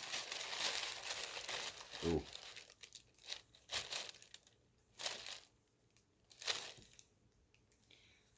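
Packaging being crinkled and torn open by hand while an item is unwrapped: steady crinkling for the first couple of seconds, then four short separate crinkles.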